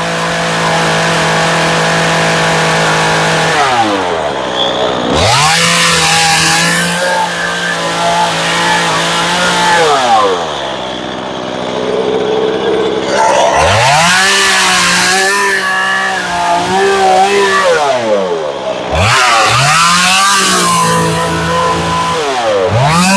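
Stihl top-handle chainsaw carving into wood at full throttle. Several times the throttle is let off, the engine winds down toward idle and then revs back up into the cut.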